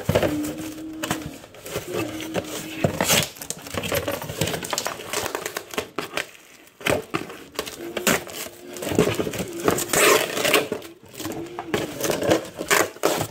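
Plastic packing tape being peeled and ripped off a cardboard box, with crackling tears and cardboard rustling in irregular bursts. The loudest tearing comes about three seconds in and again around the ten-second mark.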